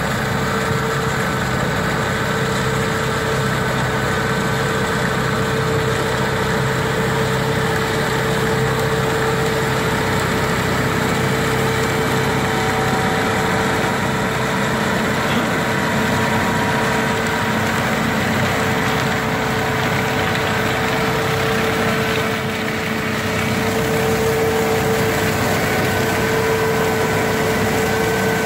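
Fendt tractor and PTO-driven Struik Glutton 3000 topper working steadily through the crop, a constant machine drone with a steady tone running through it. There is a brief slight lull a little after the middle.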